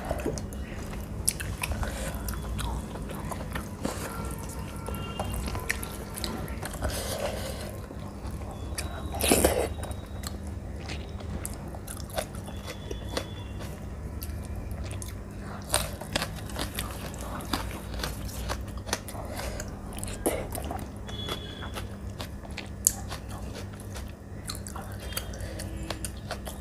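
Close-miked chewing and biting of a person eating chicken curry and rice by hand, with many small wet clicks and smacks. One louder burst comes about nine seconds in, over a steady low hum.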